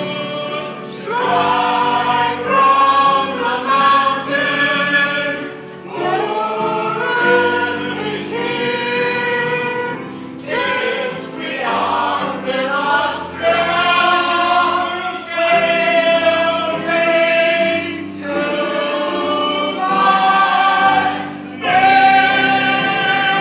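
Music: a group of voices singing a song together, in phrases of held notes with short breaks between them.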